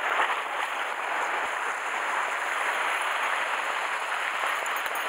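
Sea water surging and splashing against the rocks at the water's edge: a steady rush of surf.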